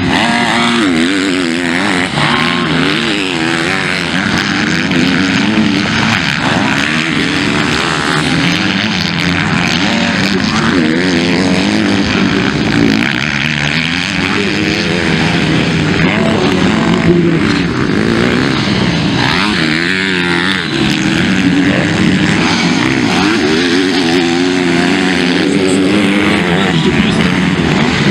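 Several motocross dirt bikes racing, their engines revving up and down without a break, one engine note over another.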